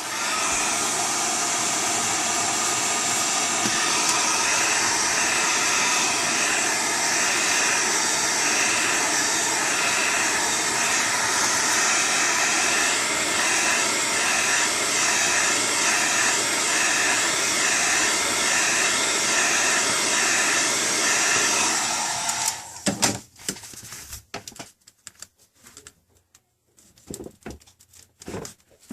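Hot-air blower running steadily, heating the tablet's screen to soften the glass adhesive. It switches off about 23 seconds in, and a few light handling clicks follow.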